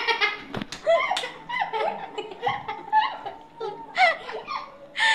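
A young boy laughing and giggling in short bursts. There is a single sharp smack about half a second in.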